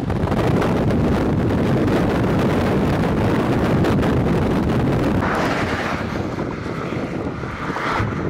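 Strong wind rushing and buffeting the microphone as a loud, steady rumble of noise, easing slightly about five seconds in.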